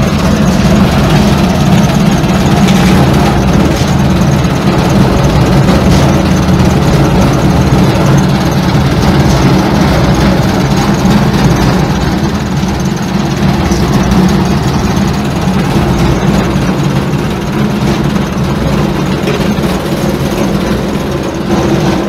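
Concrete mixer running: its small stationary engine runs at a steady speed while the drum turns.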